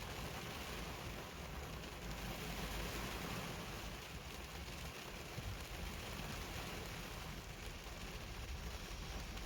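Heavy rain falling steadily: an even hiss of rain with a low rumble beneath it.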